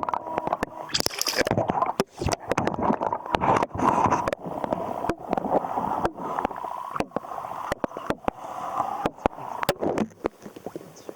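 Water sloshing, gurgling and splashing close to the microphone, broken by many irregular knocks and bumps, as a large Australian bass is released back into the water.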